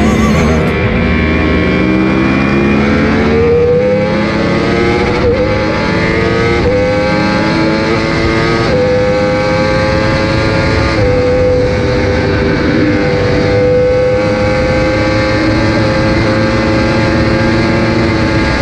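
Sport motorcycle engine accelerating hard through the gears. Its pitch climbs and drops back at each of about four upshifts in the first nine seconds, then holds a steady high pitch that slowly sags.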